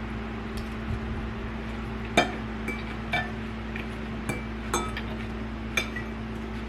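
Eating utensils clinking against a dish while eating: a series of light clinks, roughly one a second, each with a brief ring, over a steady low hum.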